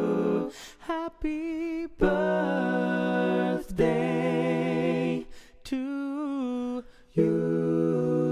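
Background music: wordless a cappella singing or humming, several held notes with vibrato in phrases broken by short pauses.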